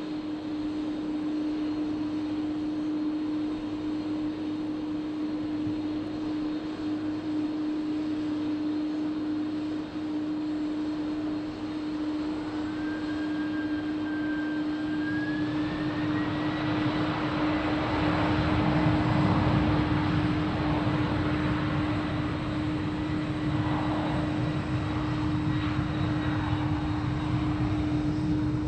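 Jet airliner engines running with a steady hum; a little under halfway through a whine rises in pitch and a rumble builds, loudest about two-thirds of the way through.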